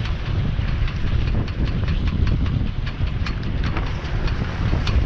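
Wind buffeting the microphone of a small sailboat under way, over water rushing and slapping along the hull with irregular short splashes.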